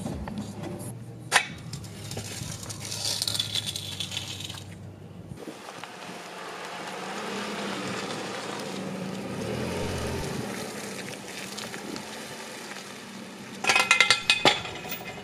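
Car engine idling with a steady low hum that cuts off about five seconds in. Near the end comes a short burst of glass clinking and rattling.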